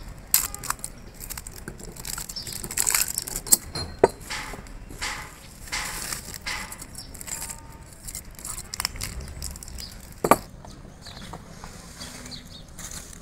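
Steel piston rings clinking and scraping against a diesel engine piston as they are handled and worked into the ring grooves by hand. There are irregular small clicks throughout, and two sharper clicks about four seconds in and about ten seconds in.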